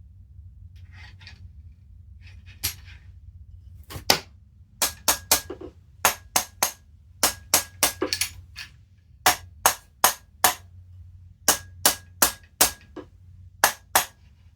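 Mallet strikes knocking a very tight-fitting part loose from a GHK AKM airsoft rifle during disassembly. The sharp taps start about four seconds in and come in quick groups of two or three, about twenty in all.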